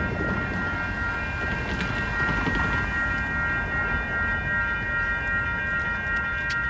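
Train passing slowly: a steady low rumble with a constant high-pitched squeal over it, and a few sharp clicks near the end.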